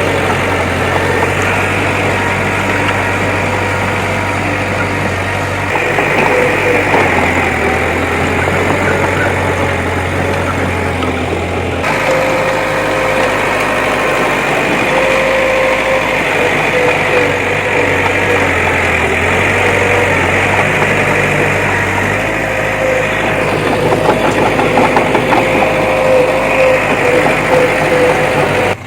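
Bulldozer's diesel engine running steadily, its low note shifting a few times as the machine works.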